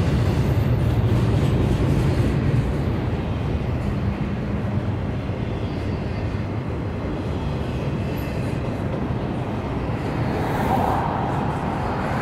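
Freight train rolling past, a steady low rumble of wheels on rail with a hiss that swells near the end.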